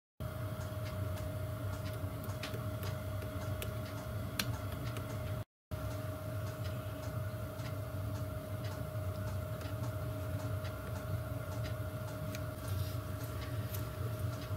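Light, irregular metal clicks and taps from pliers and a screwdriver working a steel ball-handle and nut on a brass lathe cross-slide dial, over a steady hum. The sound drops out briefly about five seconds in.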